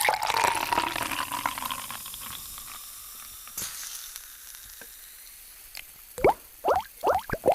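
A drink fizzing in a glass, the hiss loud at first and slowly dying down. From about six seconds in come five or six quick liquid plops, each rising in pitch.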